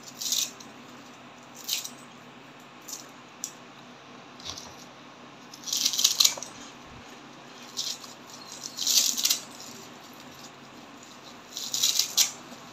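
Kitchen scissors snipping through bunches of garlic chives: short crisp cuts every second or two, some coming in quick runs of several snips.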